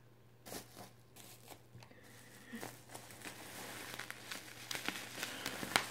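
Plastic bubble wrap crinkling and rustling as it is handled and unwrapped, with scattered sharp crackles, growing busier about two seconds in.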